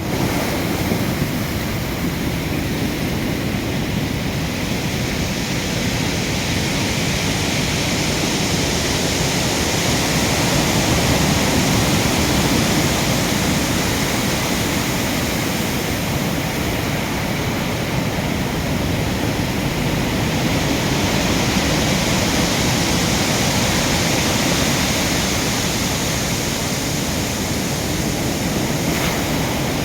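Stormy sea surf: a continuous rush of breaking waves that swells slightly louder now and then.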